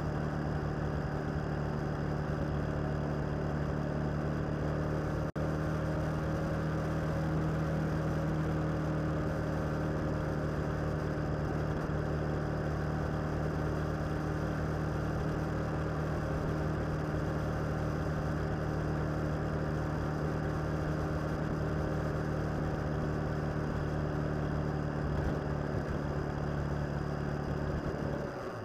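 Motorcycle engine running at a steady cruising speed during a ride, its pitch holding nearly constant, with a momentary dropout about five seconds in.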